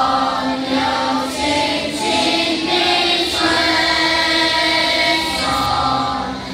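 Children's choir singing together, holding long notes that change pitch every second or two.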